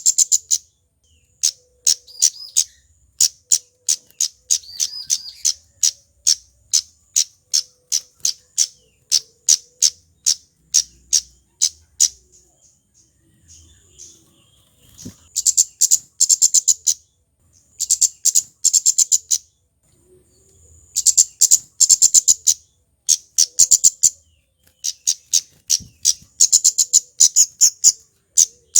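Kemade flowerpecker calling: strings of sharp, high ticking notes in rapid bursts, several a second, with short pauses between bursts.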